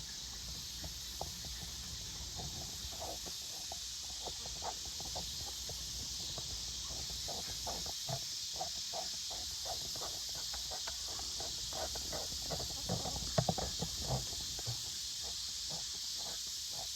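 Evening insects chirring steadily, with many short, soft clucks and peeps from chickens settling to roost. A few louder knocks come about thirteen to fourteen seconds in.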